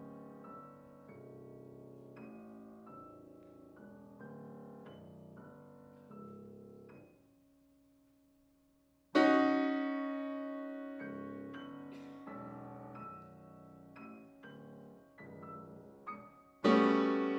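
Steinway grand piano played solo in a contemporary classical piece: soft, scattered notes that fade almost to nothing, then a loud chord struck about nine seconds in that rings and decays under quieter notes, and another loud chord just before the end.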